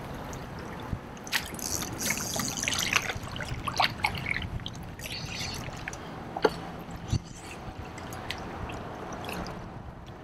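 Water splashing and trickling at the side of a kayak as a hooked redfish is fought and brought in, with scattered sharp clicks and knocks, the loudest about six and seven seconds in.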